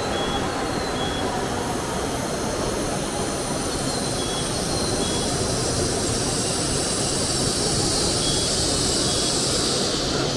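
Shinkansen bullet train coming into the platform: a steady rushing hiss of the train that grows brighter and a little louder near the end.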